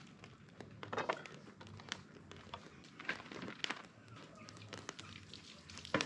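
Wood fire crackling under a pot on a cinder-block hearth: scattered sharp snaps and pops at uneven intervals, over a faint steady low hum.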